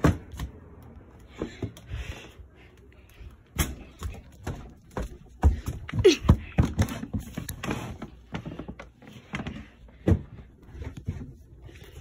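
Handheld phone and objects being handled, with scattered knocks, bumps and rustling, and a few short breathy hisses.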